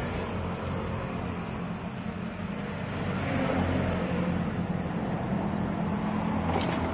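Steady hum of a motor vehicle engine running nearby, growing a little louder about halfway through, with a brief clicking near the end.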